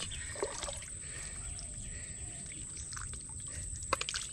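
Wet mud squelching and sloshing as hands dig into soft mangrove mud, with sharp squelches about half a second in and again near the end.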